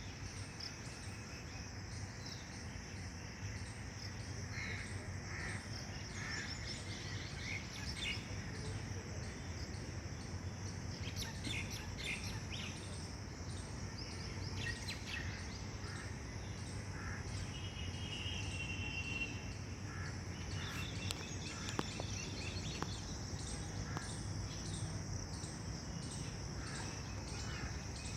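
Outdoor ambience of birds chirping and calling on and off, over a steady high insect drone and a low background rumble.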